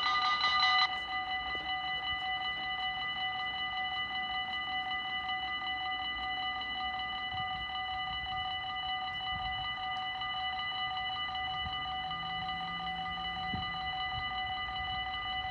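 Dutch railway level-crossing warning bells ringing in a fast, steady pulse, warning that a train is coming. About a second in the ringing drops to a quieter level as the barriers come fully down.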